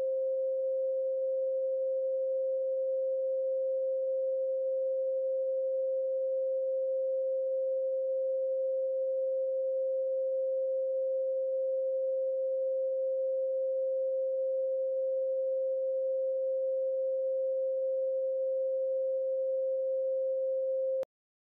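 A single steady electronic pure tone, presented as the 'frequency' of copper and petrified wood, held at a mid pitch and cutting off suddenly near the end. A fainter, higher layer of tones fades out in the first second.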